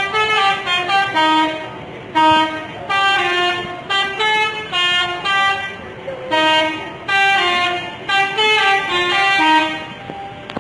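Bus 'telolet' musical horn playing a jingling tune of stepped notes in several short phrases with brief gaps, stopping near the end.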